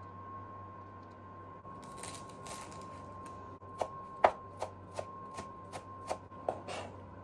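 Chef's knife chopping fresh parsley on a plastic cutting board: about nine strikes, roughly three a second, starting about four seconds in, the second strike the loudest, after some soft rustling. Underneath runs a steady faint whine and hum, which the cook puts down to her oven running.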